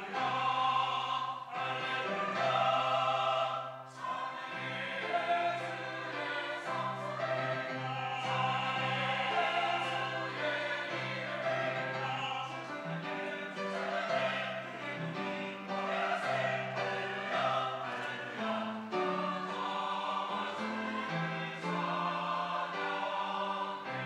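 Mixed church choir of men's and women's voices singing a doxology in sustained, changing chords, with lyrics of "hallelujah".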